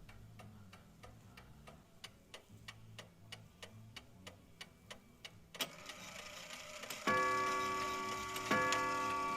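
A 1914 E. Ingraham mantle clock ticking about three times a second, then a click as its striking mechanism lets go, and two ringing strikes about a second and a half apart. The repaired movement is running and striking again.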